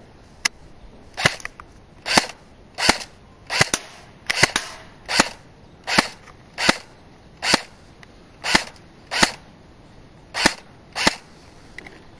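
Airsoft Thompson M1A1 submachine gun firing single shots: about fourteen sharp pops, one every second or less, with a couple of slightly longer pauses.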